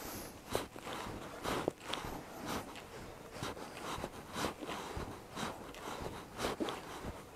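Irregular soft rustles and light knocks from a judoka drilling pulls against a resistance band: the judogi cloth swishing and bare feet shifting on the tatami, roughly one or two a second.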